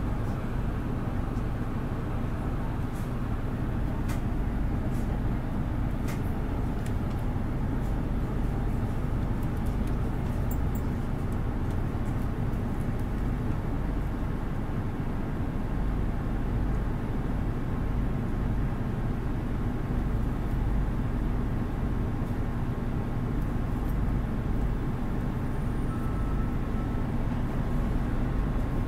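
2008 Nissan Diesel Space Runner RA (PDG-RA273MAN) city bus diesel engine running with a steady low hum, heard from inside the passenger cabin.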